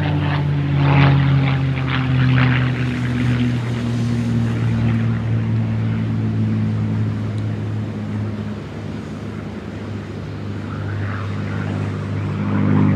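P-51 Mustang's Merlin V12 engine and propeller droning as the fighter flies by, the pitch sinking slowly. The sound eases off somewhat past the middle and swells again near the end.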